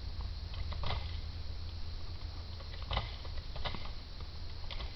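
Black bear pawing and pulling at a hanging feeder on a tripod, giving a few short clicks and crackles: about a second in, twice around three seconds, and once near the end. Under them runs a steady low hum.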